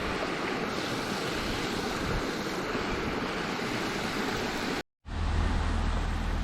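Strong wind buffeting the microphone with flowing river water beneath it, a steady rushing noise. Near the end it cuts off abruptly, and a steady low hum begins.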